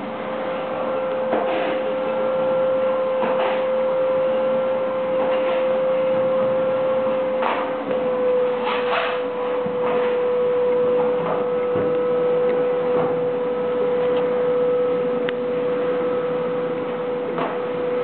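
Vacuum cleaner motor running steadily with a constant high hum, its pitch dropping slightly about eight seconds in.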